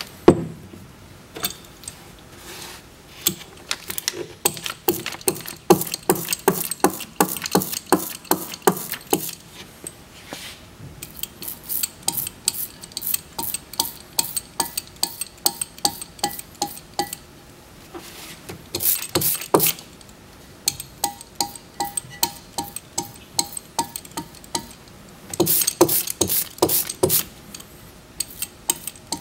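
Socket ratchet clicking in quick runs as it turns the housing bolts of a Rotax 912ULS gearbox, the runs broken by short pauses.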